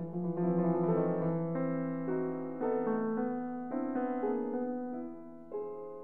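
Background piano music: single notes and chords struck one after another and left to fade.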